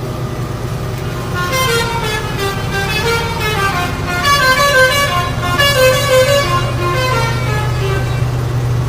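A lorry's telolet (basuri) musical horn playing a stepping, multi-note tune. It starts about a second and a half in and runs for about six seconds over the steady hum of the lorry's engine.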